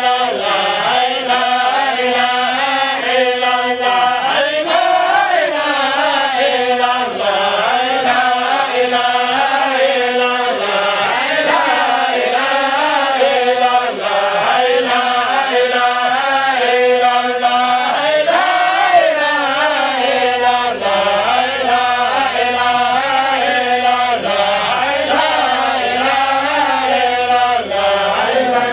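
Men chanting an Islamic prayer: one unbroken melodic chant whose pitch wavers and slides up and down.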